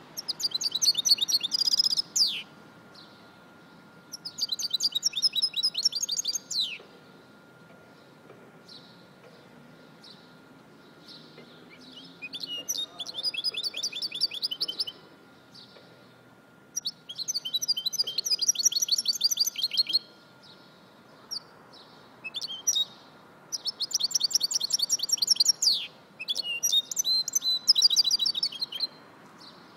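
Goldfinch mule, a European goldfinch × canary hybrid, singing. It gives about seven bursts of fast, high twittering and trilling song, each two to three seconds long, with pauses between them.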